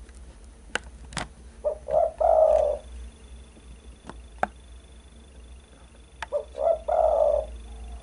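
Spotted dove cooing twice, about four seconds apart: each phrase is a couple of short notes running into a longer, louder coo. A few sharp clicks fall between the phrases.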